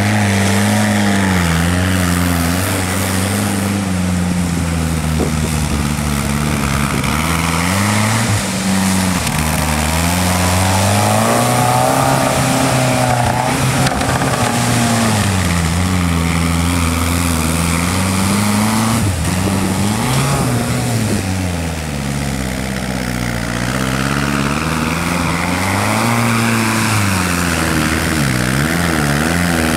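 A Willys Jeep's M151 Mutt four-cylinder engine running while the Jeep is driven, its pitch rising and falling again and again as it speeds up and eases off.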